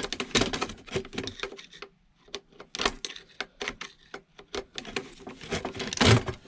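Irregular clicking, tapping and clattering of hand tools and metal parts as an appliance is dismantled by hand, with a brief pause about two seconds in.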